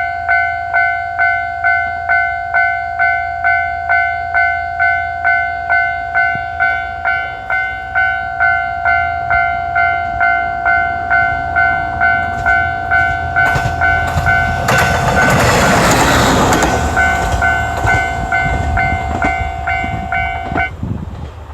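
Japanese level-crossing warning bell ringing steadily about twice a second while a local train passes, its run over the crossing loudest about 14 to 18 seconds in with the wheels clattering over the rail joints. The bell stops about a second before the end.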